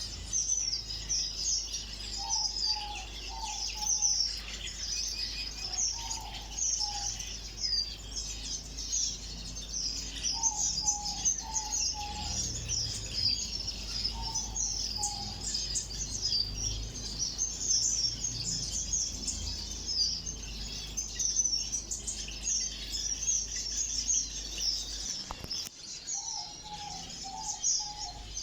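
Many small aviary birds chirping continuously, with a lower call of three or four short notes repeated every few seconds. A low hum underneath cuts off about 25 seconds in.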